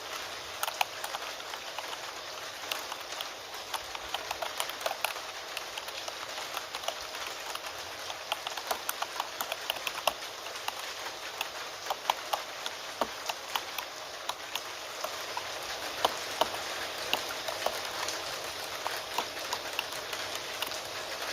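Computer keyboard typing, sharp irregular key clicks in uneven runs of several a second, over a steady hiss of rain.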